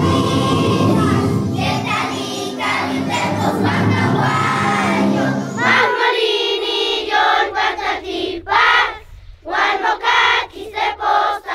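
Music for the first half. About halfway through, it gives way to a large group of schoolchildren singing together in unison, unaccompanied, in short phrases with breaks between them.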